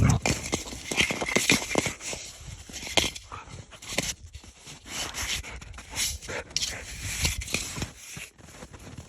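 A dog at play, with a dense, irregular run of clicks, knocks and scuffles and some dog noises.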